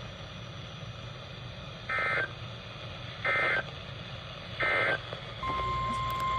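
Emergency Alert System end-of-message signal: three short, identical bursts of warbling digital data tones, a little over a second apart, marking the end of a severe thunderstorm warning broadcast. Near the end, a steady single-pitched alert tone begins.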